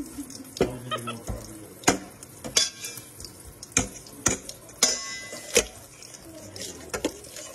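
A metal spoon and a mesh scrubber knocking and clinking against a stainless steel colander in water, handled by a capuchin monkey: irregular metallic clinks and clanks, about a dozen.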